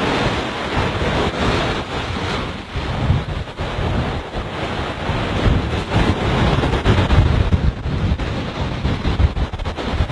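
Small waves washing onto a sandy beach, with wind buffeting the microphone in uneven low gusts.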